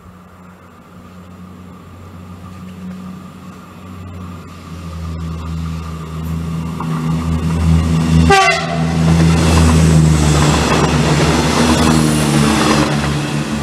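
Electric passenger train approaching and passing at speed through a station: a low hum that builds steadily, then the rushing noise of the train going by, loudest about ten seconds in. A brief falling tone sounds just before the train reaches the microphone.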